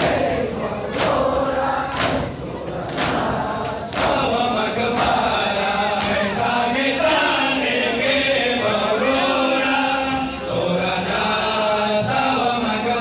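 Crowd of men beating their chests in unison, a sharp slap about once a second, until about four seconds in. A group of men then chants a Pashto noha in unison, with only a few more chest beats.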